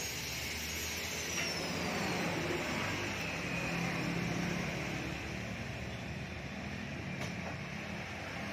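A motor vehicle's engine running steadily, with a continuous low hum.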